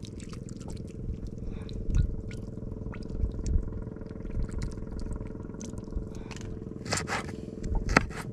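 Spiced coconut vinegar poured from a glass bottle onto raw fish, with light scattered clicks and trickling, over a steady low mechanical hum. Near the end come a few sharp knife strikes on a plastic cutting board as red chili peppers are chopped.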